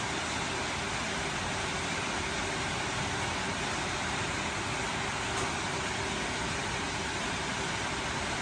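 Steady rainfall making an even hiss.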